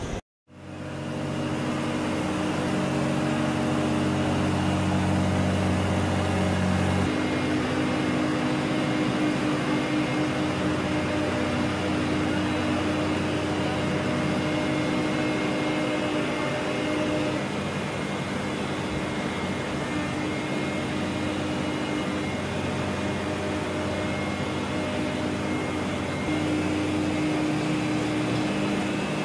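Steady machinery drone on an aircraft carrier: engines and deck equipment running, a low hum of several steady tones over a wide noise. The hum changes pitch about seven seconds in and again near the end, after a brief dropout to silence at the very start.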